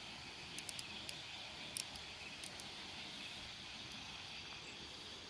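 Faint, steady background hiss of a quiet outdoor night, with a few small scattered clicks and ticks.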